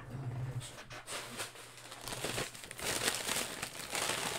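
Plastic crinkling and rustling as a pack of soft plastic penny sleeves for trading cards is handled, growing denser and louder in the second half.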